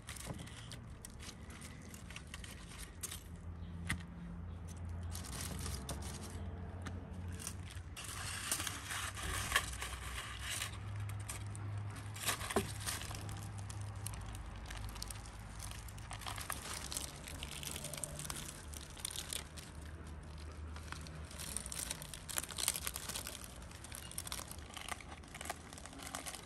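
Hands breaking up a whole trout cooked under salt on a foil-lined tray: crinkling of the aluminium foil, with tearing and squishing of the cooked flesh and skin. It comes in uneven fits, busiest in the middle and again near the end.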